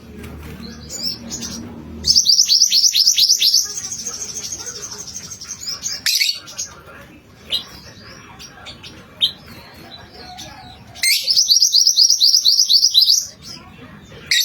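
A songbird, the 'mantenan kuning' kept by Indonesian birdkeepers, singing. Two loud bursts of rapid, high, falling notes, one about two seconds in and one about eleven seconds in, each lasting one and a half to two seconds, with scattered single chirps between them.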